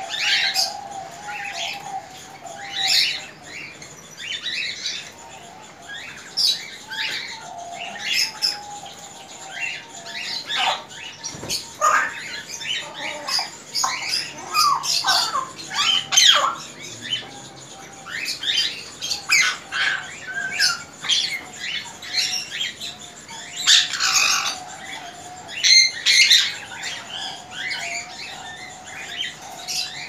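A roomful of small caged birds chirping and squawking: many short, sharp calls in quick succession over a continuous wavering chatter.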